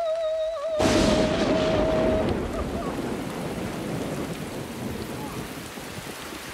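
A clap of thunder about a second in, followed by heavy rain that slowly fades. Over the first two seconds a single held, wavering high note sounds.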